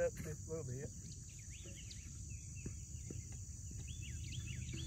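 Steady high drone of insects, with a bird chirping in quick runs of short rising-and-falling notes and a few faint knocks.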